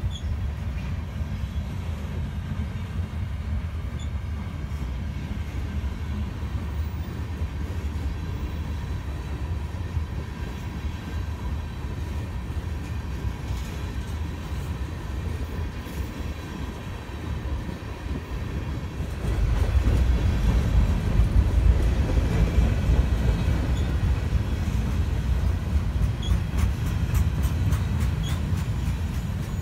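Freight train cars of a mixed manifest rolling past. Their steel wheels make a steady low rumble on the rails that grows louder about two-thirds of the way through, with a run of light clicks near the end.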